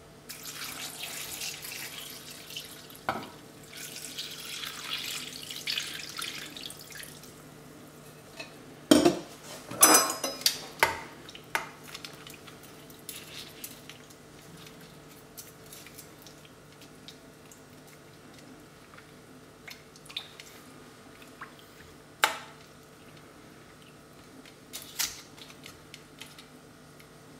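Red wine marinade poured over meat and vegetables in a glass baking dish, a steady splashing pour for about the first seven seconds. Then metal tongs clink against the glass dish as the meat pieces are moved, a burst of sharp clinks around ten seconds in and a couple of single clinks near the end.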